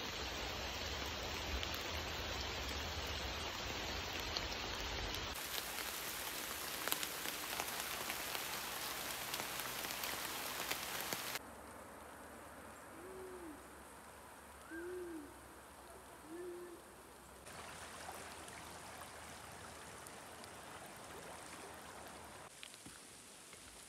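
Light rain falling on leaves and water, a steady patter that changes abruptly several times. In the quieter middle stretch, three short low hoots sound about a second and a half apart.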